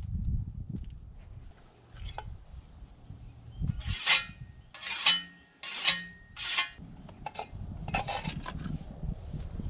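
Scythe blade being honed with a whetstone: four strokes of stone on steel, each under a second apart, starting about four seconds in, then a couple more near the end.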